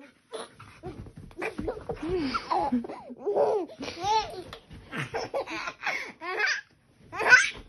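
A baby laughing and squealing in repeated high-pitched bursts, loudest shortly before the end.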